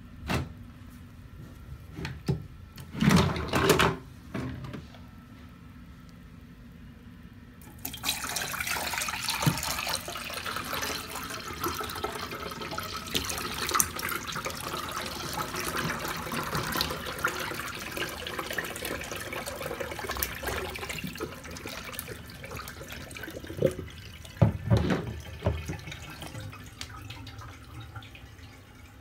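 1970s Concord/Cadette toilet flushing. A few loud knocks come in the first few seconds. About eight seconds in, a sudden rush of water starts, runs for roughly fifteen seconds and eases off, with a couple more knocks near the end, then a quieter steady trickle.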